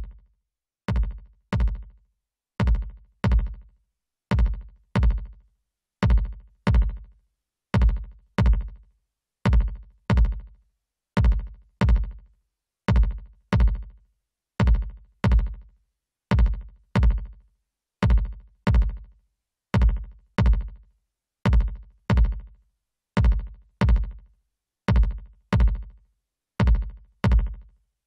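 Electronic drum-machine kick drum loop: pairs of deep, punchy kick hits, each dropping quickly in pitch, repeating steadily about every 1.7 seconds.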